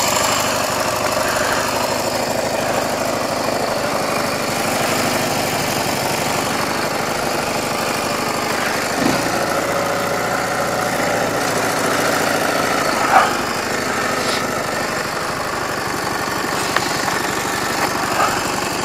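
Soviet motorcycle engine running steadily, with a couple of short knocks about nine and thirteen seconds in.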